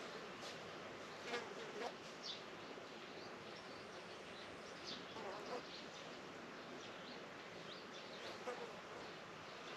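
Faint outdoor farm ambience: insects buzzing over a steady background, with scattered short high chirps, likely birds, and a few brief soft knocks.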